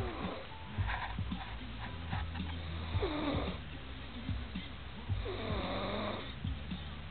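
Snoring: three slow breaths about two seconds apart, each with a squeaky, whistling tone that slides down in pitch.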